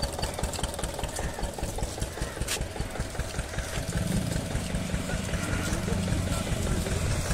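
An engine running steadily at idle-like speed, with a fast, even low thumping; a steady low hum joins it about four seconds in.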